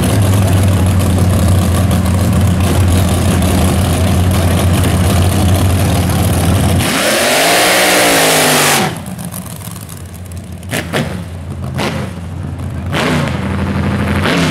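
Front-engine dragster's engine idling steadily, then revved hard about seven seconds in for a burnout, the rear tyres spinning with a loud hiss. About two seconds later the sound cuts off abruptly to the same engine heard fainter from down the track, its revs rising and falling.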